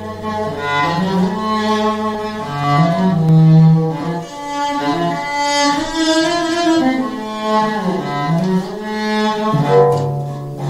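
All-steel, welded sheet-metal cello being bowed, playing a slow line of sustained notes that move up and down in pitch, with a few sharper note attacks near the end.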